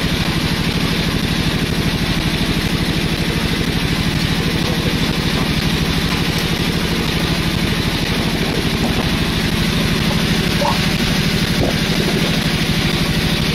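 A boat's engine running steadily, a constant low drone with a fast, even throb.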